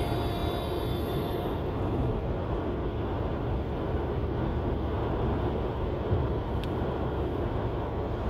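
Steady low road and engine noise heard from inside a moving car's cabin.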